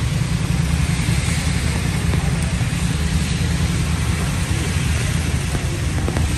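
City street traffic on rain-wet roads: a steady low rumble of engines under an even hiss of tyres and rain.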